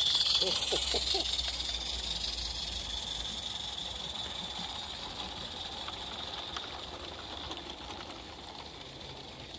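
A 16mm-scale live-steam garden-railway locomotive hissing steam as it passes with its train and draws away, the hiss loudest at first and fading steadily.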